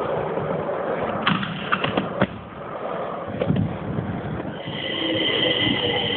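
Inline skate wheels rolling on a hard station floor, with several sharp clacks about a second or two in. Near the end, a metro train's wheels start squealing in two steady high tones.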